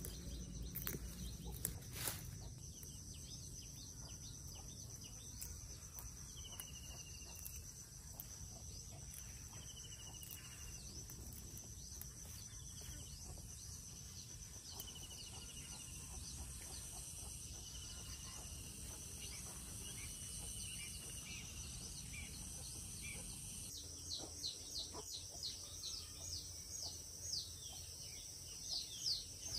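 Countryside ambience: insects drone steadily on one high note over a low rumble. A bird gives short falling whistles every few seconds, and near the end a quick run of chirps comes in.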